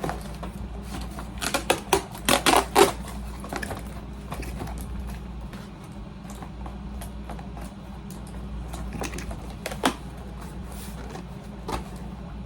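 Cardboard packaging handled and opened by hand: a run of clicks, taps and scrapes, loudest about two to three seconds in, with a single sharp click near the end, over the steady hum of an air conditioner.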